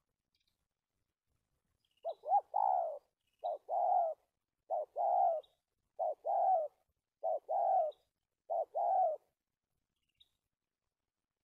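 Decoy spotted dove cooing, with the stuttering coo it is kept for: six repeated phrases of a short note followed by a longer one, about one every 1.2 seconds, starting about two seconds in and stopping near the end.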